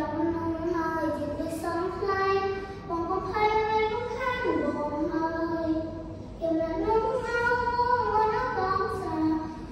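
A young girl singing a slow melody into a microphone, holding long notes that step up and down in pitch.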